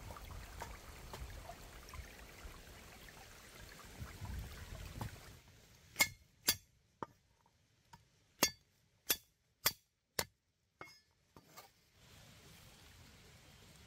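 A run of about ten sharp, short clinks, unevenly spaced roughly half a second apart, like hard objects tapping together, in an otherwise quiet stretch. Before them, a faint steady background with small ticks.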